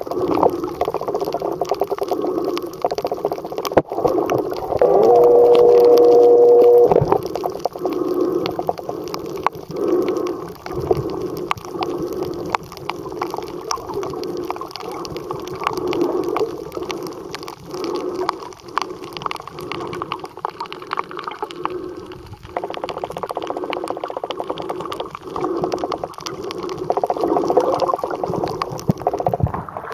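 Muffled water sound picked up by a camera held underwater while snorkelling over a reef: swishing and gurgling that pulses roughly once a second, with a steady hum from about five to seven seconds in.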